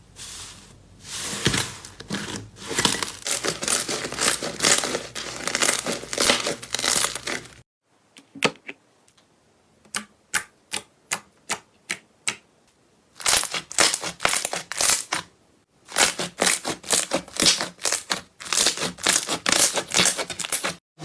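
Slime being squeezed and poked, making dense crackling clicks and pops; for a few seconds in the middle there are only separate clicks, about two a second, before the dense crackling returns.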